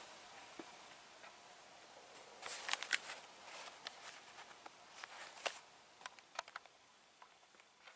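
Faint scattered clicks and rustles of small items and packaging being handled, in two short clusters, one a few seconds in and one near the middle.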